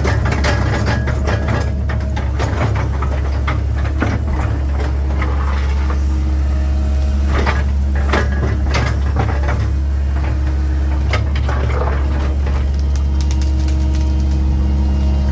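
Link-Belt 2700 excavator's diesel engine running steadily under work, with scattered sharp cracks and knocks over the top.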